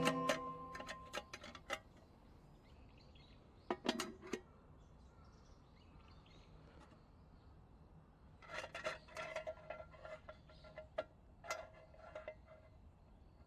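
Wire bail handle of an army-style mess tin clinking against the pot and its brass pivot as it is lifted and turned. A short cluster of light metal clicks comes about four seconds in, and a longer run of clinks with a brief ring follows between about eight and twelve seconds. Background music fades out at the start.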